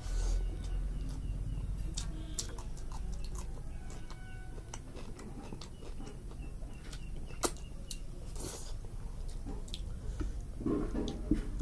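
Close-up eating sounds: chewing and lip smacks with scattered small clicks, and one sharper click about seven and a half seconds in.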